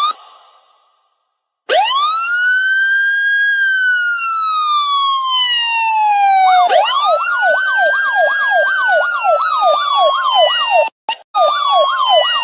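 Two voices imitating a police siren: a long wail that rises and slowly falls, starting about two seconds in, then a second wail joined by a fast yelping whoop of about three cycles a second, with brief breaks near the end.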